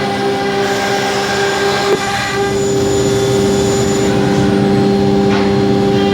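CNC router spindle milling a pattern into an MDF panel: a steady whine over the constant rush of the cut, with one short click about two seconds in.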